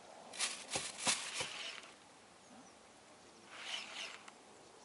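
Baitcasting reel wound in a short spurt about three and a half seconds in, a soft whirring, as a jig-rig lure is retrieved in steps. A cluster of sharp clicks and knocks comes in the first two seconds.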